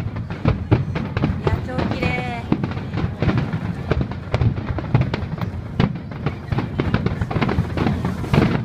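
Aerial firework shells bursting in quick succession, a dense barrage of bangs and crackling with no pause.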